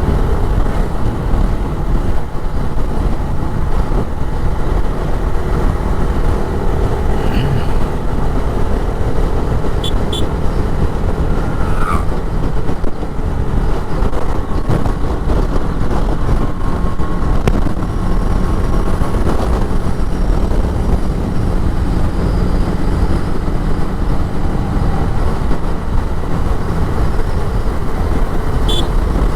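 TVS Apache RR 310 motorcycle under way: steady engine and road noise with wind rush, heard from a mic on the rider, with a few faint short tones from traffic.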